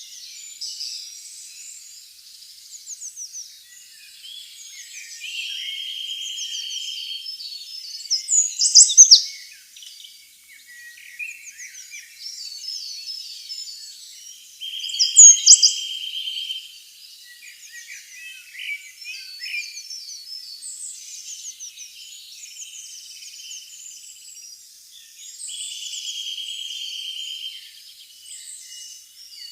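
Several songbirds singing and chirping together in a forest, all high-pitched. A buzzy two-second trill comes back about every ten seconds, and two loud bursts of sharp rising chirps stand out about nine and fifteen seconds in.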